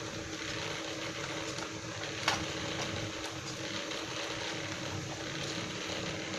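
Steady low hiss and hum, with one light click about two seconds in, while a small screw holding the laptop's optical drive is undone with a screwdriver.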